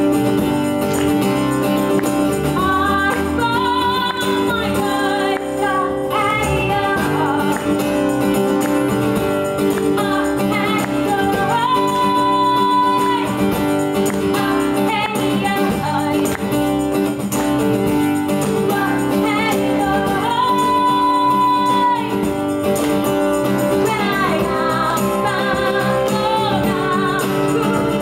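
Live band playing a pop song: a woman singing lead over acoustic guitar and bass, with a tambourine shaken along. Twice she holds a long high note.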